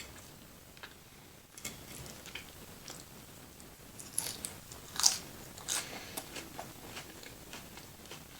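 Close-miked eating sounds: bites and chewing with crisp crunches, the loudest a little after five seconds in.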